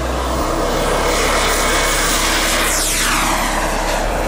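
Model jet's turbine engine at full power through the takeoff run and climb-out, a loud steady rush with a sweep falling in pitch about three seconds in as the jet goes by.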